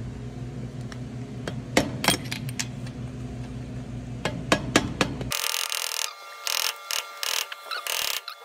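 Hammer tapping a 3/16 punch to drive the pin into the shifter linkage through the short-shift plate: sharp, irregular taps, a few at first and coming closer together in the second half.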